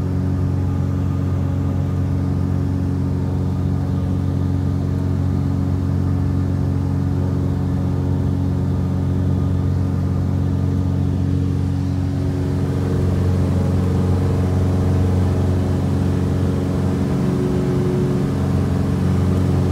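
Cessna 172's piston engine and propeller running steadily at climb power, heard from inside the cabin as a constant drone. It grows slightly louder about two-thirds of the way through.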